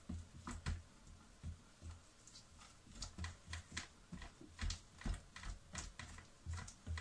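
A kitchen utensil knocking and scraping against the plastic bowl of a switched-off food processor while stirring thick ground fish paste: a string of irregular light clicks and dull knocks.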